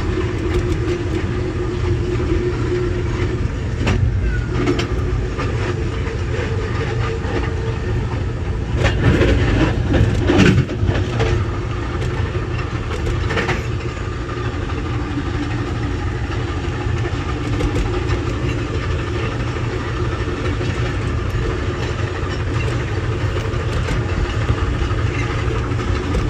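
Amtrak passenger train running on the rails, heard from aboard: a steady low rumble of wheels on track with a few sharp clicks and a louder clattering stretch about nine to eleven seconds in.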